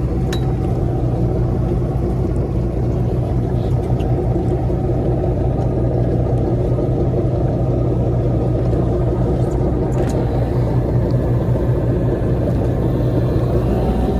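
Fishing boat's engine running steadily: a loud, even, low rumble.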